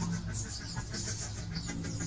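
Birds chirping over a low, steady hum.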